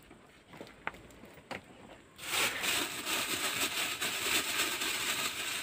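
A plastic bag of cucumbers being handled, rustling and crinkling densely from about two seconds in. Before that come a few faint clicks, such as salt or the contents being dropped into it.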